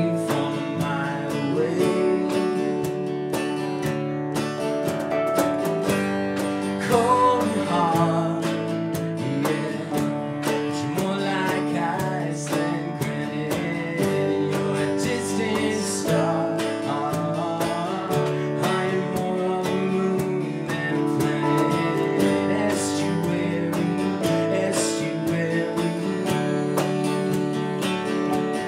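Small band playing an instrumental passage: strummed acoustic guitar over Nord Electro 6 keyboard chords, with regular hand-drum strokes on a wooden box drum.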